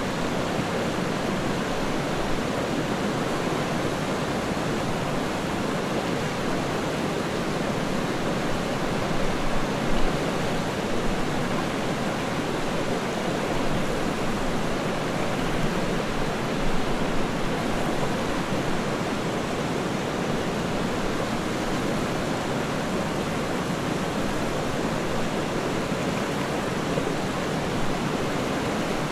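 River water rushing steadily, an even noise with no break.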